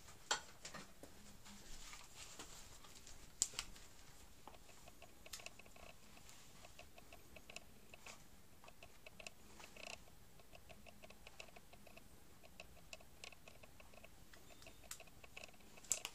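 Faint handling sounds: a few light clicks, then a run of soft, rapid ticking as a small plastic part is picked up and moved about.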